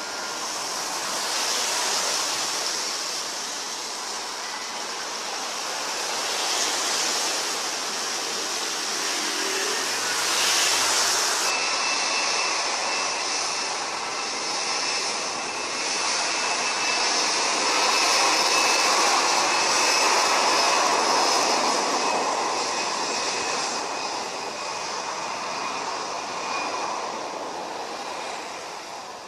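Airbus A320 jet engines at takeoff power as the airliners roll down a wet runway: a steady roar that swells and fades, with a thin high fan whine running above it from about halfway.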